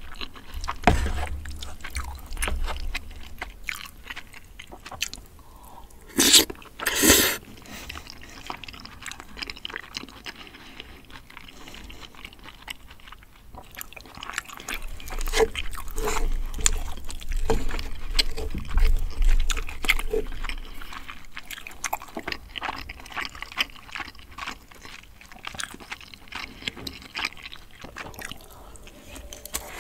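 Close-miked chewing and mouth sounds of someone eating spicy braised chicken and rice, with small clicks from the spoon. Two louder short noisy bursts come about six and seven seconds in.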